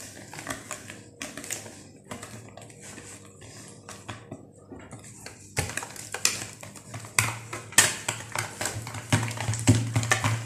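Wire whisk beating eggs, sugar and cornstarch in a plastic bowl: a quick, continuous clicking and tapping of the wires against the bowl, with the strokes getting louder about halfway through.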